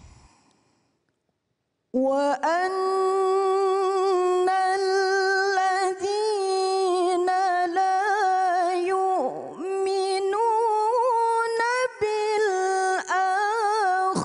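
A woman reciting the Quran in Arabic in the melodic tilawah style: one voice holding long, ornamented notes at a steady pitch, with short breaks for breath. It begins about two seconds in, after a near-silent pause.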